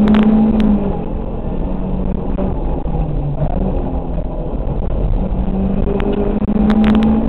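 Rally car's engine heard from inside the cabin at speed, its revs falling about a second in, dipping lower around three seconds and climbing again near the end as the driver works the throttle and gears. Sharp ticks and knocks near the start and near the end.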